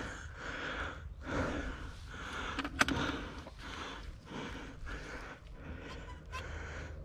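A man breathing hard and fast, roughly one breath a second, out of breath from physical exertion; a sharp click sounds about three seconds in.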